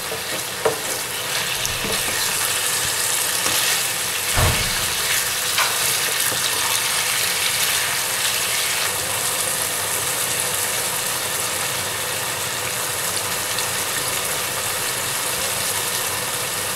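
Boneless chicken pieces sizzling steadily in hot oil in a frying pan on a high flame, the water coming out of the chicken keeping it spluttering. A wooden spatula stirring the pieces knocks against the pan a few times in the first half.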